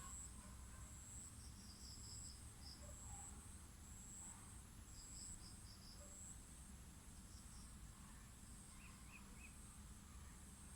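Faint ambience: short runs of three to five quick high chirps repeat every few seconds over a steady low hum.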